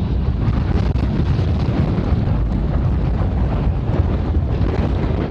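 Gale-force storm wind buffeting the phone's microphone: a loud, continuous low rumble with gusty flutter.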